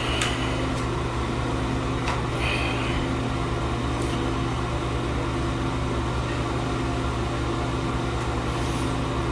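Bathroom exhaust fan running with a steady hum, with a few faint clicks over it.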